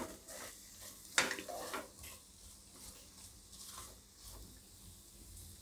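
Silicone spatula stirring chunks of potato and onion in a metal pressure cooker: soft scraping and shuffling of the food, with one sharper knock against the pot about a second in.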